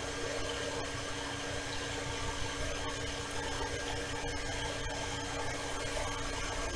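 Steady background hum and hiss from an unseen appliance, with a few faint clicks and rustles of a paper sticker sheet being handled.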